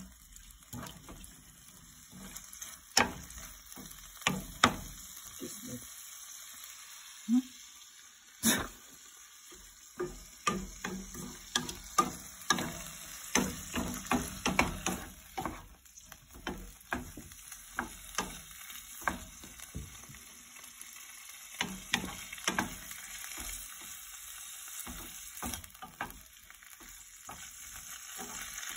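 Shrimp frying in a nonstick pan with a steady sizzle, while a wooden spatula stirs and scrapes, tapping against the pan in many irregular clicks.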